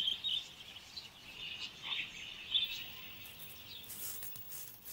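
Wild budgerigars chattering in quick, high chirps through the first three seconds or so, then faint scratchy rustling.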